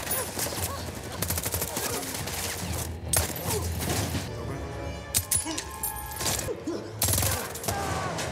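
Movie-soundtrack gunfire: several rapid bursts of shots, the loudest cracks about three, five and seven seconds in, over film score music.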